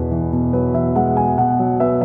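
Instrumental background music: a keyboard melody over held bass notes, the notes changing every half second or so.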